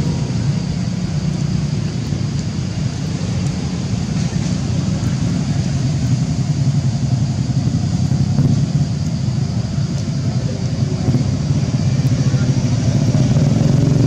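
A motor vehicle engine running steadily, a continuous low rumble with no change in pace.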